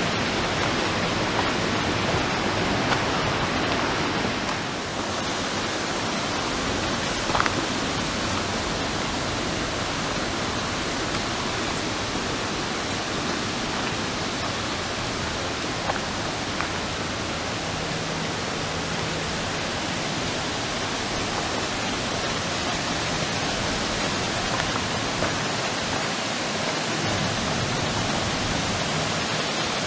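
Steady rush of fast-flowing water, like river rapids, unbroken and even throughout.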